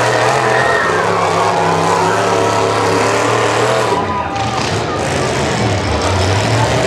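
Demolition derby trucks' engines running loud and revving, the pitch rising and falling, with a change in the sound about four seconds in as two trucks push against each other.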